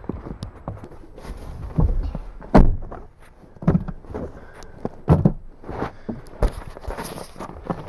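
Irregular thumps and knocks of people climbing into a vehicle and moving about in it, about five of them louder than the rest.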